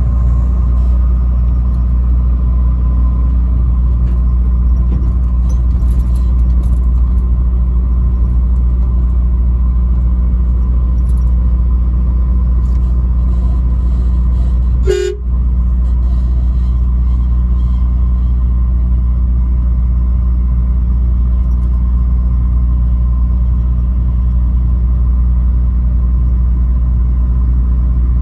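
Steady low road and engine rumble of a vehicle driving at speed. About halfway through, a horn gives one short blast.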